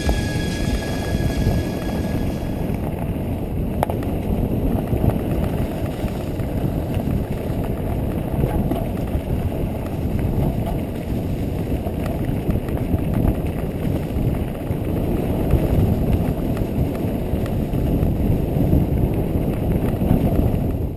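Mountain bike rolling fast down a leaf-covered dirt trail, heard from a camera mounted on the rider: a loud, steady rumble of tyres and trail noise with wind on the microphone. Background music fades out in the first few seconds.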